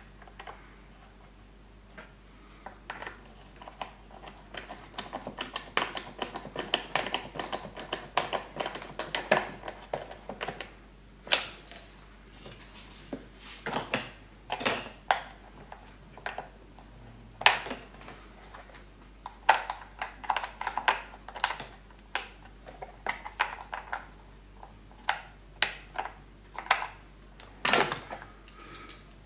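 Hard plastic mower housing parts and a small hand tool clicking, knocking and rattling as they are handled and fitted back together, in irregular runs of sharp clicks with a few louder knocks.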